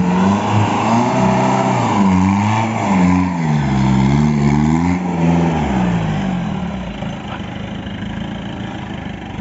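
Off-road 4x4's engine revving up and down several times under throttle, then running quieter and steadier for the last few seconds.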